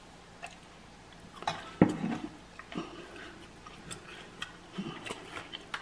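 A person eating a crunchy snack: scattered small clicks and crunches of chewing, with one sharper knock a little under two seconds in.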